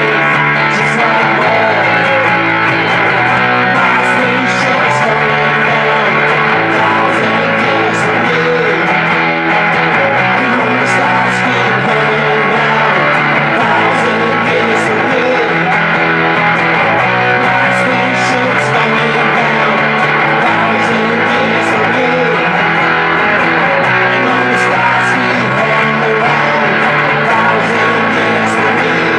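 Live acoustic rock band: strummed acoustic guitars with a man singing lead into a microphone and other voices joining on harmonies.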